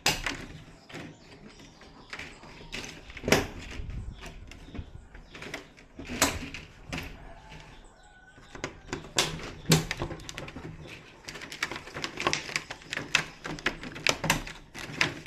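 Irregular clicks, taps and knocks of television parts being handled and fitted, such as the backlight panel sheets and LED strips.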